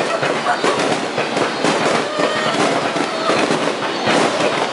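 Fireworks display: a dense, continuous barrage of cracks and pops from many bursts in quick succession.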